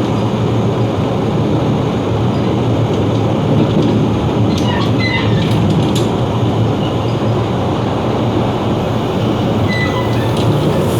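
Running noise at the gangway between cars of a Taroko Express (TEMU1000 tilting train): a steady loud rumble, with brief high squeaks and clicks about five seconds in and again near the end.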